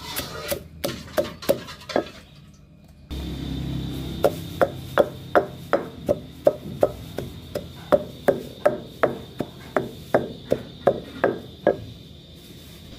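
Wooden pestle pounding dried fish in a mortar, crushing it to a powder: a steady rhythm of dull thuds, about two or three a second, with a short pause about two seconds in. The thuds stop shortly before the end.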